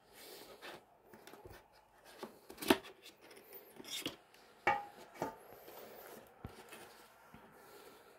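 Cardboard perfume box being handled, tipped over and its end flap pulled open: paperboard scraping and rubbing on the table, with a few sharp clicks.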